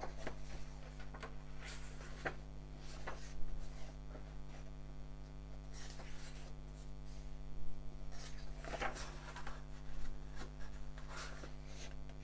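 Pages of a thick paperback comic being turned and handled by hand: soft paper rustles and brushes every second or two, over a steady low electrical hum.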